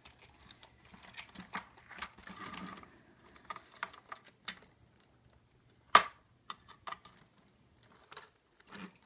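Hard plastic parts of a toy backhoe loader clicking and tapping irregularly as they are handled and fitted together, with one sharp, louder click about six seconds in.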